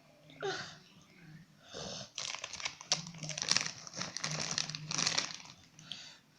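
Plastic bag of salgadinho snack chips crinkling and crackling as it is handled, dense from about two seconds in until near the end. A short pitched glide comes about half a second in.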